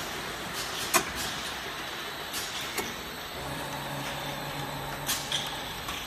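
Automatic piston filling machine and bottle conveyor running with a steady mechanical noise, broken by sharp clicks from its pneumatic valves and cylinders, the loudest about a second in and another near five seconds. A low hum joins in about halfway through.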